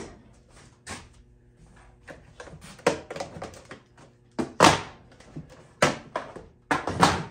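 Irregular wooden knocks and thuds, about five or six in all, the loudest a little before five seconds in, as the machinist chest's bare wooden case is handled and set against the workbench.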